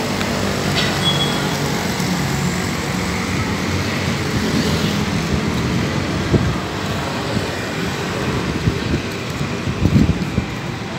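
Steady road traffic noise from passing motor vehicles, with a brief high tone about a second in and a few short thumps about six and ten seconds in.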